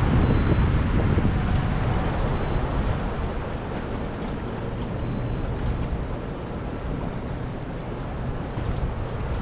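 Wind buffeting the microphone over the rush of turbulent water below a hydroelectric dam's outflow: a steady noise heaviest in the low end, a little louder in the first couple of seconds.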